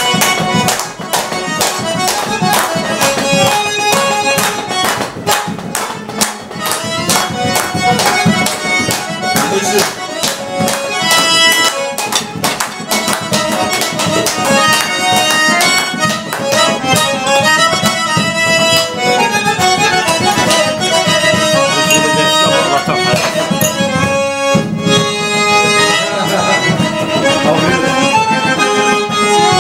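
Button accordion (garmon) playing a lively traditional tune, with hands clapping along in time, most densely through the first half.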